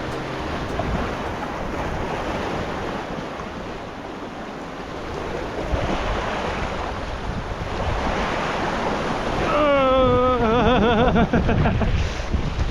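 Sea waves washing onto the shore, with wind buffeting the microphone. About ten seconds in, a wavering pitched sound cuts in for about two seconds.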